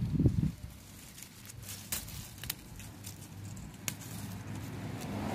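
Green beans being picked by hand off the vine: leaves rustling and a few sharp snaps, after a dull low thump right at the start.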